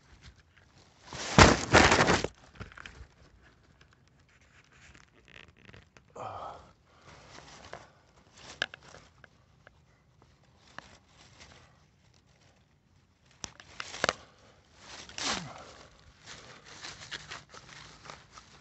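A hand digging knife scrapes and cuts into forest soil among dry leaves, with crunching and rustling in irregular short bursts and quiet gaps between them. The loudest is a rustling crunch about a second and a half in.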